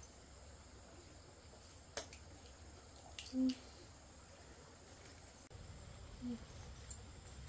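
Faint steady insect chirring, broken by a sharp click about two seconds in, then two more clicks and a brief low call about three seconds in, and another short low call near the end.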